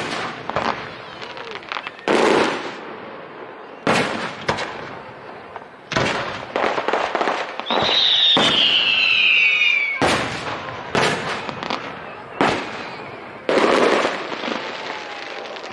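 Aerial fireworks display: a run of about ten sharp shell bursts going off every second or two, with crackling between them. About eight seconds in, a whistling shell rises and falls in pitch over about two seconds.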